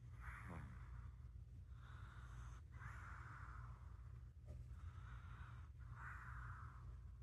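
A sleeping cat snoring: a soft, breathy rasp on each breath in and out, repeating about every second or so.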